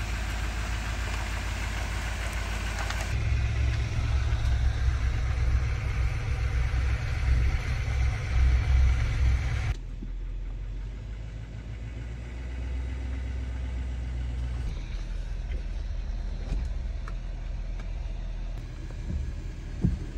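Pickup truck engine and road noise heard from inside the cab while driving. It is louder for several seconds, drops abruptly to a quieter low rumble about ten seconds in, and has a few short knocks near the end.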